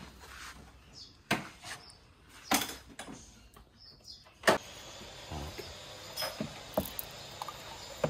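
Three sharp knocks, about a second apart, from things being handled, then a steady faint hiss with a few small clicks.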